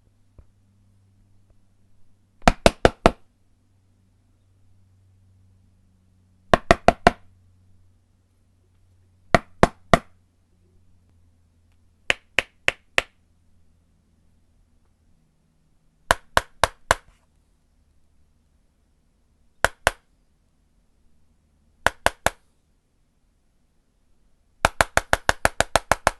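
Knocking on a door, in short groups of three or four raps with pauses of a few seconds between, then a fast, insistent run of about ten raps near the end.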